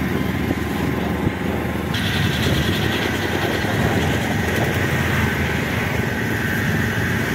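A motor vehicle's engine running steadily under dense road noise, with a steady high whine that joins about two seconds in.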